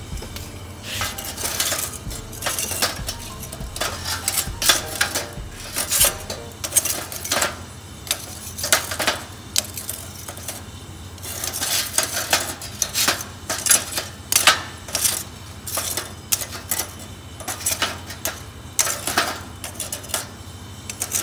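Metal tongs clinking and scraping against lumps of charcoal and the sides of a metal can on a gas ring burner, in irregular clatters, as the charcoal is turned to catch on the flame. Under it runs the steady low rush of the burner.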